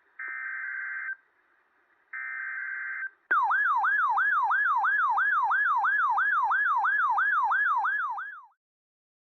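Two one-second bursts of Emergency Alert System digital header tones (SAME data bursts), about a second apart. They are followed by a loud electronic siren-like alert tone that sweeps up and down about three times a second for about five seconds, then stops.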